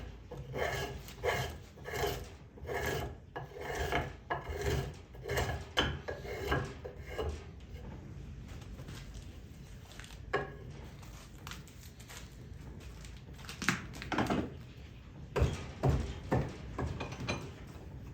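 Hand tool stroked back and forth over a wooden axe handle to shape it, about two strokes a second. The strokes pause partway through, with a single knock in the quieter stretch, then start again near the end.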